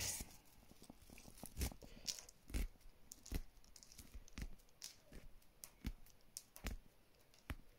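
Pine needles being pulled off the stem of a pine cutting: faint, irregular snaps and crackles, a few each second.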